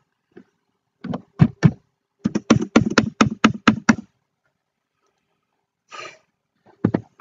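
A quick run of about a dozen sharp knocks, roughly four a second, followed near the end by a brief rustle and two more knocks.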